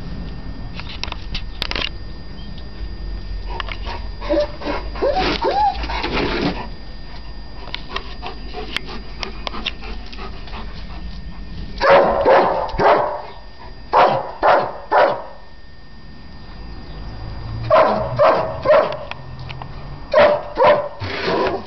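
A German Shepherd barking in short bursts of two to four barks, heard four times in the second half, with some whining yelps about five seconds in.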